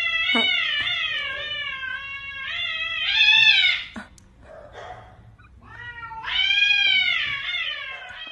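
Domestic cat yowling at another cat in a face-off: two long, wavering, drawn-out yowls. The first swells louder just before it breaks off about four seconds in, and the second comes after a short pause. It is a threatening, defensive warning.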